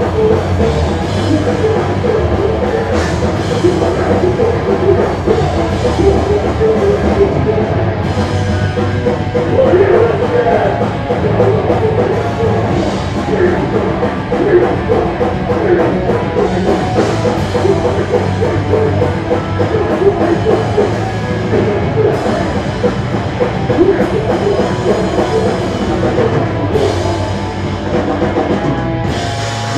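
A heavy rock band playing live and loud: electric guitars, bass and drum kit, with the vocalist shouting into a handheld microphone.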